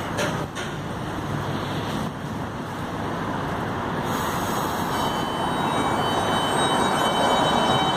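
R160 subway train at the platform with a steady rumble and hum, then starting to pull out. About five seconds in, a high thin whine of several steady tones comes in from its traction motors as it begins to accelerate.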